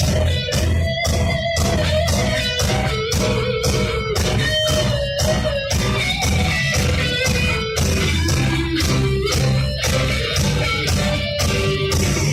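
Live rock band playing an instrumental passage: an electric guitar melody over bass guitar and a steady drum beat.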